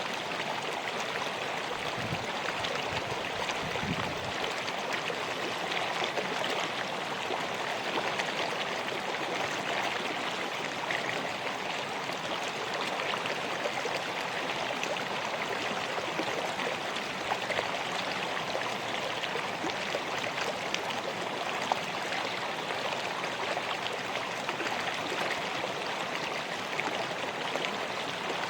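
River water flowing steadily, a constant rushing and babbling with small splashes over stones.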